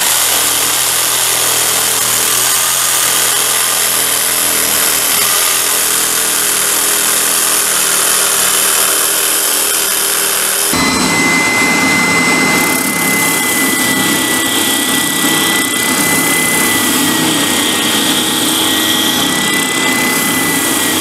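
Cordless jigsaw cutting through a wooden board with a steady, loud buzz. About eleven seconds in it gives way to a benchtop spindle sander running with a steady high whine as a wooden rib is held against its sanding drum.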